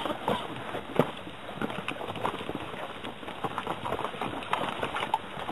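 Irregular footsteps and short knocks of people moving about on the ground.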